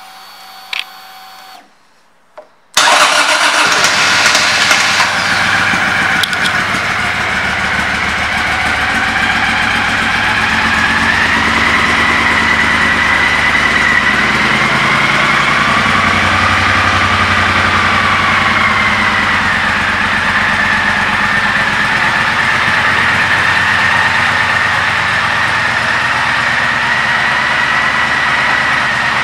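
2010 Triumph Thunderbird's parallel-twin engine starting and then idling steadily. A short electric whine and a click come as the ignition is switched on, and the engine catches nearly three seconds in.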